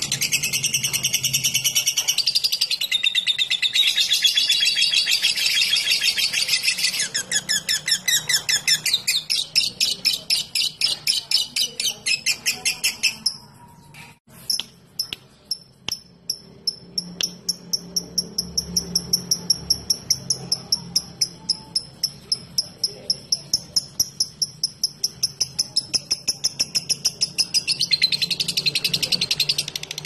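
Fisher's lovebird singing its long chattering 'ngekek' song. A dense, high chatter turns into a rapid trill, breaks off for about a second halfway through with a few single clicks, then runs into a long stretch of rapid, even ticking ('ngetik') before the dense chatter returns near the end.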